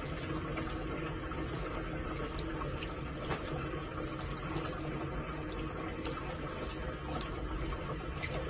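A tap running steadily into a sink basin, its stream splashing over the head of a cat drinking from it, with a few small ticks.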